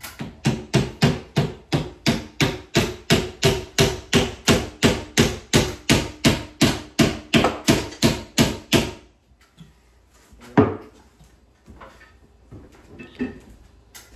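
Hammer striking in a steady rapid rhythm, about three blows a second for some nine seconds, then stopping. A second or so later comes a single louder knock.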